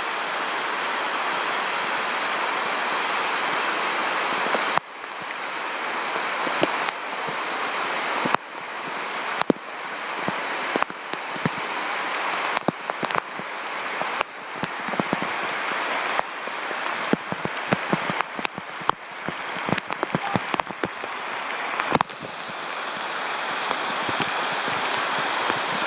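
Heavy rain pouring down, a loud steady hiss full of sharp splats from single big drops landing close by. The downpour's hiss drops off suddenly a few times and swells back each time.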